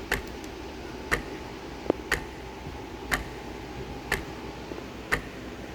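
A clock ticking once a second with sharp, evenly spaced ticks over a faint steady hiss.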